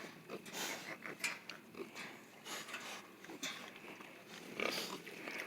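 Scattered light clicks, knocks and rustling from pigs moving about in their pen.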